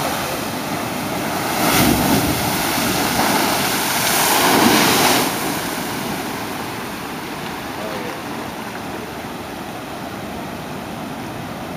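Ocean surf crashing and surging over rocks, with two louder surges about two seconds and four to five seconds in, then foamy water washing back and draining with a rushing hiss that slowly fades.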